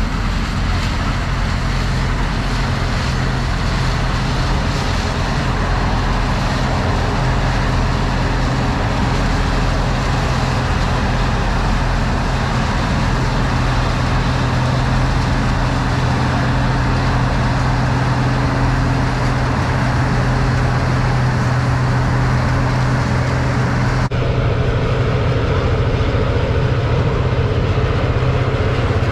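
Large farm machine's engine running steadily at working speed, a low even drone. About 24 seconds in the sound shifts abruptly to a slightly different engine tone.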